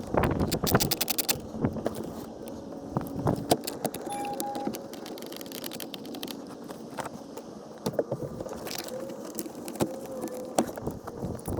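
Quarter-inch ratchet clicking in fast runs as bolts are tightened into a car's blower-motor housing, densest in the first second or so, then scattered clicks and metal clinks.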